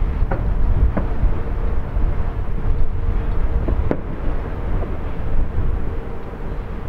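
Far-off fireworks shells bursting: three sharp bangs, two within the first second and one about four seconds in, over a steady low rumble.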